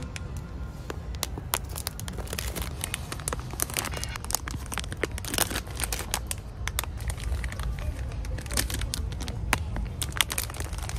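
Plastic film wrappers on packs of wet cleaning wipes crinkling and crackling as they are handled, a dense run of sharp, irregular crackles over a steady low hum.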